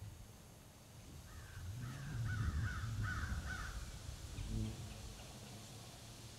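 Wind rumbling on the microphone, with a bird calling several times in quick succession from about one to three and a half seconds in.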